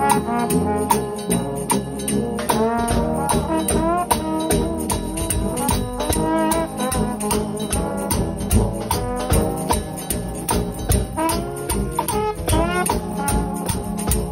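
Gospel shout band of several trombones and other brass playing together over a drum kit and cymbals, with a fast, steady beat and horn notes that bend and slide.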